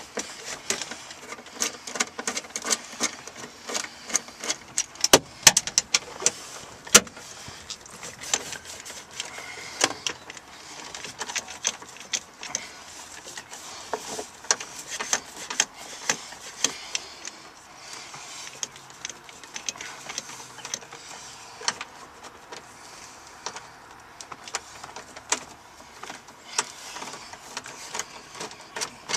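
Ratchet with a long extension and socket loosening the 10 mm bolts on a subwoofer's metal frame: irregular runs of small metallic clicks and clatters, with a few sharper knocks about five and seven seconds in.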